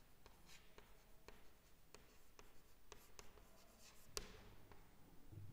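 Chalk tapping and scratching on a chalkboard as words are written out: a string of faint taps, with a sharper click about four seconds in.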